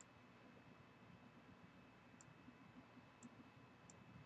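Near silence with four faint, sharp computer mouse clicks spread over a few seconds.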